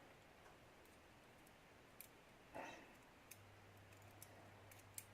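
Near silence broken by a few faint, scattered small clicks of metal lock pins and springs being handled while the lock is taken apart, with a brief faint rustle in the middle. A faint low hum sets in after about three seconds.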